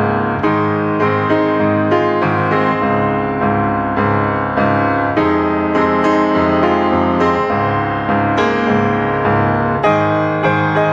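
Background keyboard music, a piano-like melody with notes struck about twice a second.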